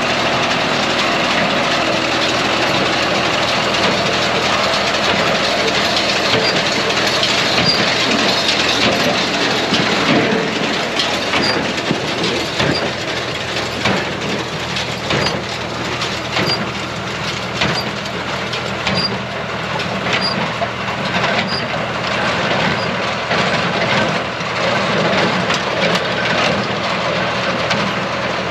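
John Deere 24T square baler running behind a tractor, the engine's steady drone overlaid by a repeated clacking and knocking from the baler's moving parts.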